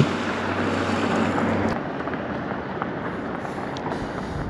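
An engine hums steadily, then drops away just under two seconds in, leaving wind noise on the microphone.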